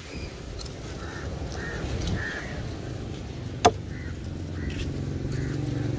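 A crow cawing several times over a low rumble. A single sharp knock about halfway through, a knife striking the wooden chopping block, and a motor engine humming louder near the end.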